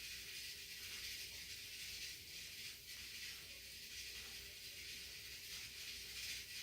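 Rice cooker cooking rice, giving off a faint, steady steam hiss with a low hum underneath.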